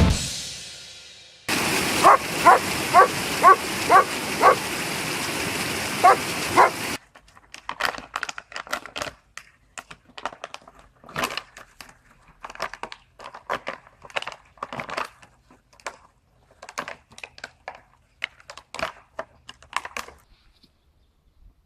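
German shepherd giving a run of short, high-pitched yips at play, several a second, over a steady hiss. Then comes a longer stretch of irregular scuffling and brushing noises.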